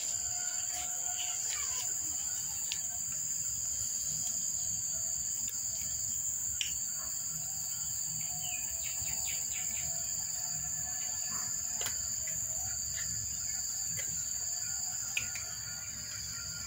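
Steady high-pitched insect chirring, with faint scattered clicks of cats crunching dry kibble.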